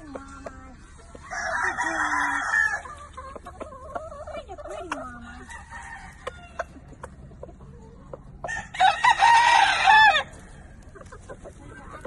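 Roosters crowing twice, once just over a second in and again near the end, each crow lasting about a second and a half. Softer low clucks come in between.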